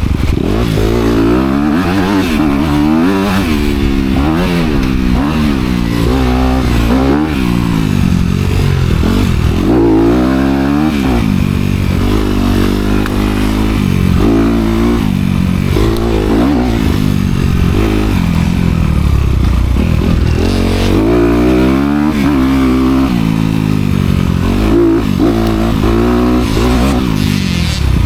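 Honda CRF250R dirt bike's single-cylinder four-stroke engine with dual exhaust, revved up and down over and over while being ridden, its pitch climbing and falling every second or two.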